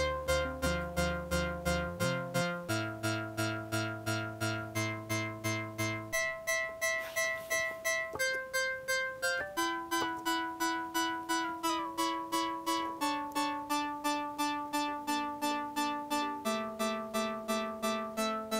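Moog Subharmonicon analog synthesizer playing a clocked sequence of short, plucky notes, about three or four a second. The pitches of the oscillators and their subharmonics step to new intervals every second or two, with a few short glides, as the knobs are turned.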